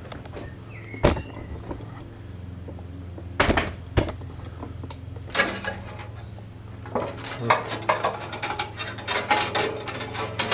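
Metal knocking and clinking as a slackened bandsaw blade is worked off the wheels of a Scheppach HBS 300 bandsaw: a few separate knocks, then a run of rapid clattering over the second half. A steady low hum runs underneath.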